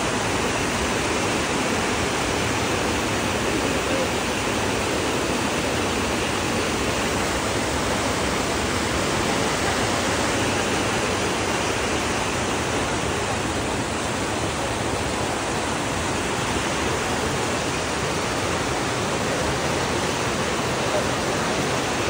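Fast river rapids rushing over boulders and through a bamboo fish-trap weir: a steady, unbroken noise of white water.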